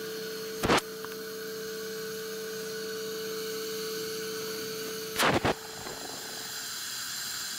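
A steady electrical hum over a faint hiss, broken by two sharp clicks, one about a second in and one about five seconds in.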